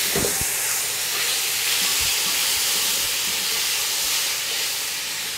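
Meat sizzling in hot oil in a steel wok: a steady, loud frying hiss that eases slightly toward the end. A few clicks of metal tongs against the wok come near the start and again about two seconds in.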